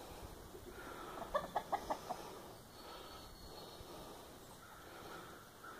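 Chicken clucking: a quick run of about six short clucks about a second and a half in, then only faint background.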